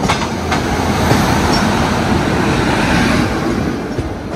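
Steady rushing rumble of a moving passenger train heard at an open coach door as it runs close alongside another train, swelling through the middle and easing near the end.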